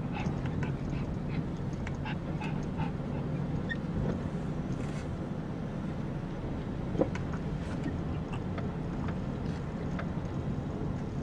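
Pomeranians panting, with a brief whine about seven seconds in, over a steady low rumble inside a car.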